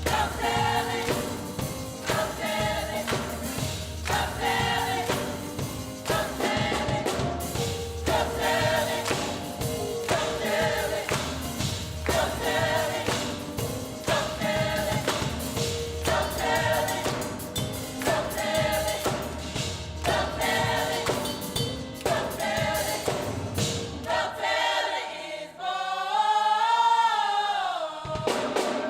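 High school choir singing a holiday song over accompaniment that keeps a steady beat, ending on one long held note with vibrato near the end.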